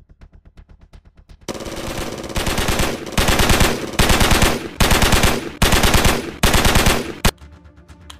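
Automatic submachine gun fire sound effect, starting about a second and a half in and going in about six rapid bursts, each under a second long. It ends with a single sharp crack.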